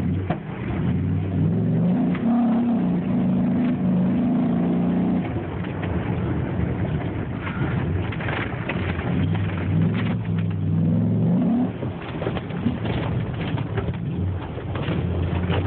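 Dodge Ram SRT-10's V10 engine heard from inside the cab under hard acceleration on a dirt course, climbing in pitch and held for a few seconds before easing off, then pulling up again about nine seconds in and dropping back near the twelfth second. Scattered knocks and rattles come through over the engine.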